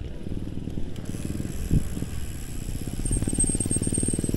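Gravel bike rolling over a rough dirt track: a low rumble of tyres and frame vibration with a fast, even ticking, joined by a thin high whine from about three seconds in.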